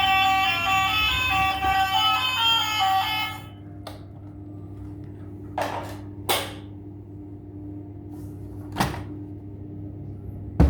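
A melody plays for about the first three and a half seconds and then stops. Four short knocks follow in the quieter stretch after it, over a low steady hum.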